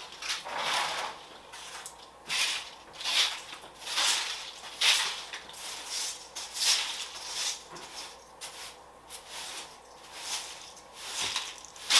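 Rustling and scraping of plant pots and plants being moved around by hand, in irregular bursts about once a second.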